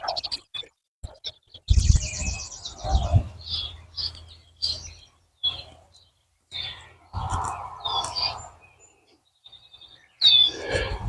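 Small birds chirping in short, separate calls, over intermittent low rumbling and rustling.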